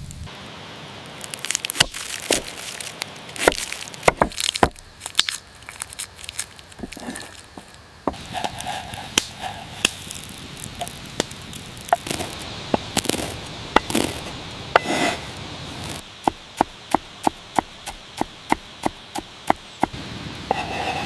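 A blade chopping on a wooden board: irregular sharp strokes, then a steady run of about three chops a second near the end.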